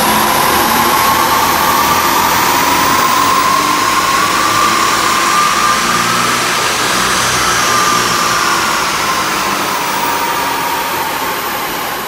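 Audi A5 3.0 TDI V6 diesel (CCWA) under a full-load pull on a rolling-road dyno: a loud steady rush with a whine that slowly climbs in pitch as the revs rise, then eases and fades near the end as the run finishes.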